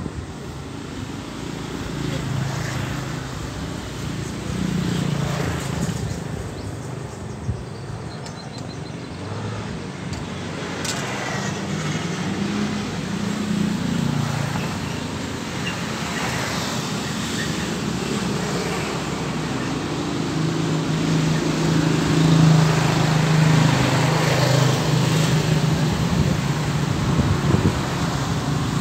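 Engines of passing motorcycles and other road traffic, humming and swelling and fading as they go by, loudest in the last third. A single sharp click about eleven seconds in.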